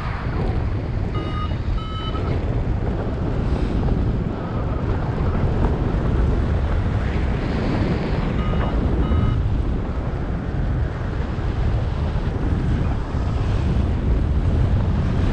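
Wind buffeting the microphone in paragliding flight, a steady rushing rumble. Short electronic beeps come twice, about a second in and again around nine seconds in, typical of a variometer signalling climb.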